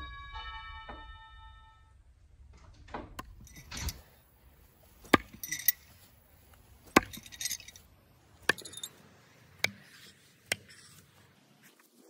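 Utilitech battery-powered wireless doorbell chime sounding a two-note ding-dong, the second note lower. After a pause comes a string of about nine sharp, loud clicks and knocks at irregular intervals.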